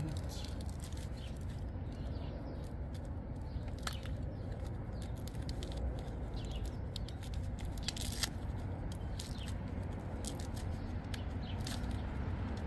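Small plastic packaging of automotive relays being handled and opened: scattered crinkles and sharp clicks over a steady low hum.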